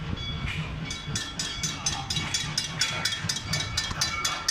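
Railroad crossing bell ringing in quick, even strikes, about four a second, starting about a second in, over a low rumble.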